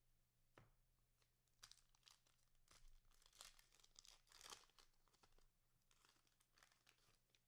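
Faint crinkling and tearing of a cellophane trading-card pack wrapper being torn open, a quick run of crackles over a few seconds.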